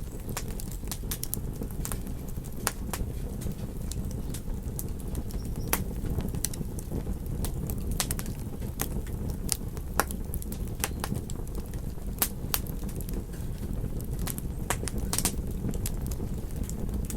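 Wood fire crackling: frequent irregular sharp pops and snaps over a steady low rumble of burning.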